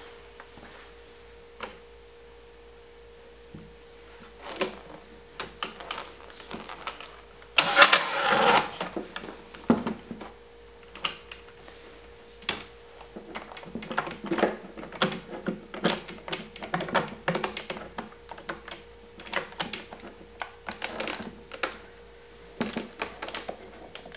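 Parallel-jaw bar clamps being placed on a glued-up cutting board and tightened: scattered clicks and knocks of the clamp jaws and handles, with a louder noisy rattle about eight seconds in, over a faint steady hum.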